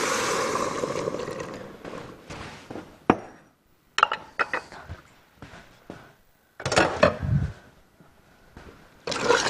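Chicken stock poured from a glass bowl into a stainless steel pot of mushrooms, a gushing splash that tapers off over about three seconds. Then scattered knocks and clinks of kitchenware, with a heavier thunk about seven seconds in.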